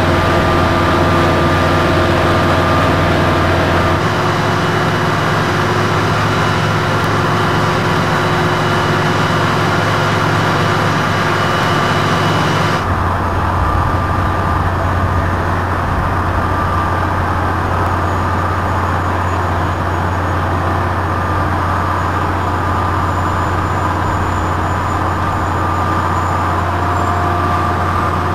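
A drilling rig's heavy engine and hydraulics run steadily, with a constant low drone and a steady whine. About thirteen seconds in the sound shifts abruptly and loses its upper hiss.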